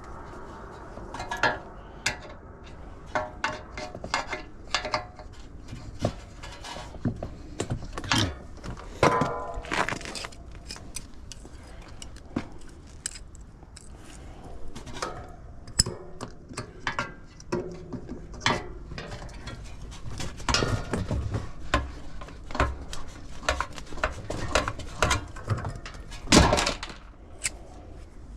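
Irregular metallic clinks and knocks of hand tools and metal parts being handled on an air-conditioner condenser unit, with one louder knock near the end.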